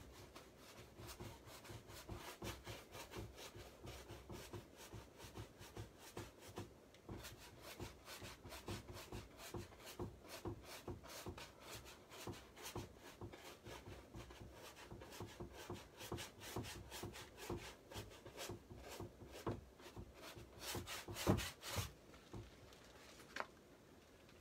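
Paintbrush scrubbing paint onto a canvas: a quick, continuous run of faint brush strokes, with a louder flurry near the end.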